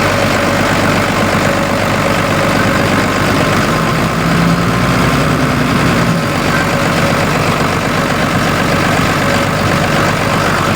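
Liugong 922D excavator's diesel engine idling steadily, with a somewhat stronger low hum for a couple of seconds midway. It stays at idle because the throttle actuator motor runs but does not pull the throttle cable, which the mechanic suspects is broken.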